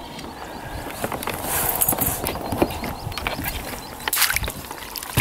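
Water splashing and scattered knocks and clatters of gear against a kayak as a landing net is swung up, with louder splashes about two seconds in and again about four seconds in.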